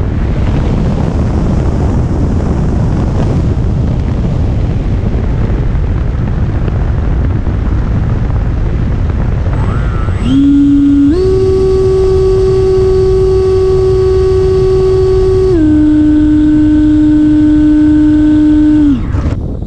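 Onboard sound of an FMS Futura 80mm 6S electric ducted-fan jet in low flight: air rushing past the camera together with fan noise. About halfway a strong steady whine from the fan unit sets in, steps up in pitch about a second later, holds, steps down again a few seconds after that, and stops abruptly shortly before the end.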